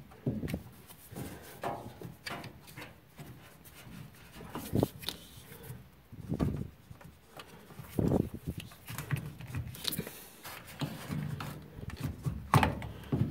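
Plastic drain pump and trap housing of a front-loading washer being worked loose by hand and slid forward on its mounts: irregular clicks, knocks and scraping of plastic against metal.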